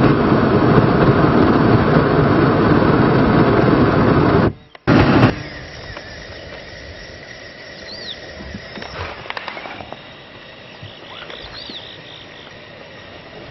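Hot-air balloon's propane burner firing with a loud, steady roar for about four and a half seconds, cutting off suddenly, then one short blast about half a second later. After that, only a much quieter open-air hush.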